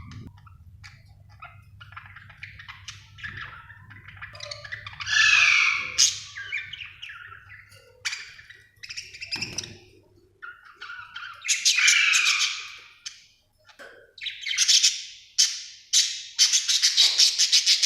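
Budgerigar chirping and warbling, with short harsh squawks mixed in; it is quiet for the first few seconds, then loud calls come in bouts, ending in fast steady chattering.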